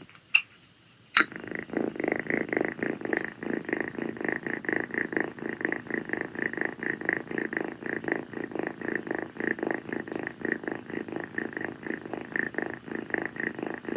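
Calico kitten purring steadily and close up, a continuous fast pulsing that swells and eases in a rhythm. It drops out briefly about a second in, marked by a couple of sharp clicks, then carries on.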